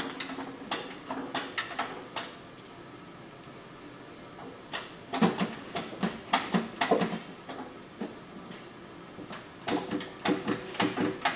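Irregular clinks and knocks of metal lift hardware being handled and tightened, some with a brief ring. They come in two busy clusters, about five seconds in and again near the end.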